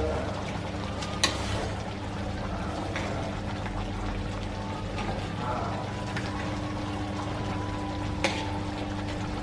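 Tomato sauce simmering in an aluminium wok around a whole carp, while a metal ladle scoops the sauce and pours it over the fish, with a few sharp clinks of the ladle against the wok.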